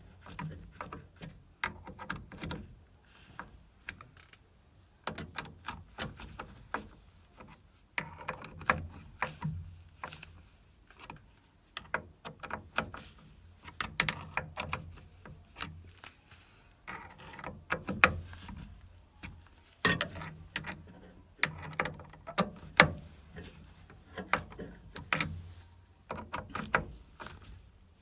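Irregular clicks, clinks and knocks of hand tools and metal parts being worked on a Viessmann combi boiler during a pump change, with short pauses between bursts of handling.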